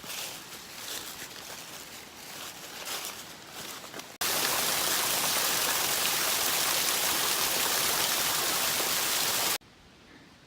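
Footsteps through leaf litter for about four seconds, then a sudden cut to the loud, steady rush of a mountain creek's flowing water, which stops abruptly about five seconds later.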